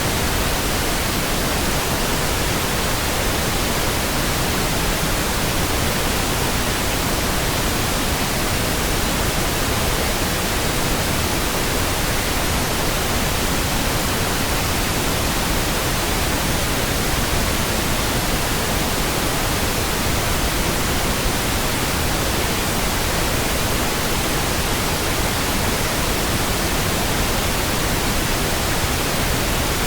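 Steady pink noise: an even, unchanging hiss spread across the whole range of pitch, with no breaks or other sounds.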